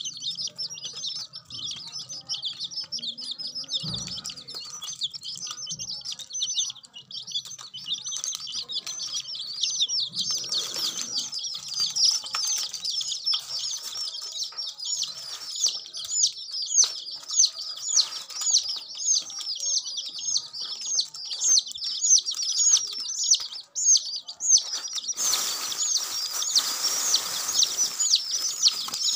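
A group of young domestic chicks peeping continuously, with many rapid, high chirps overlapping. A rustling hiss joins in near the end.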